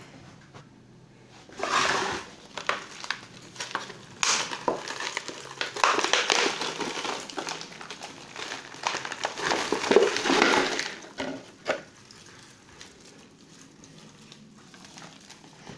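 Thin plastic pot cut from a plastic bottle crinkling and crackling as it is squeezed and flexed in the hands to work an orchid out of it, with many sharp clicks. The crackling starts about a second and a half in, goes on for about ten seconds and then stops.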